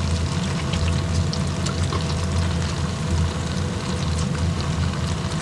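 A pan of creamy tagliatelle cooking on the hob: a steady low rumble and hiss with faint scattered crackles.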